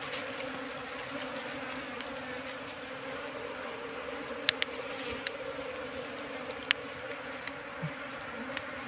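A swarm of honey bees buzzing in a steady, even hum, the colony stirred up by smoke as its nest is opened for the honey. A few sharp clicks stand out in the second half.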